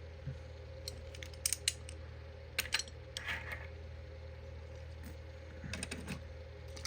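Light clicks and clinks of small diecast toy trucks being handled and set down, in a few short clusters, with a brief scrape in the middle. A steady low hum runs underneath.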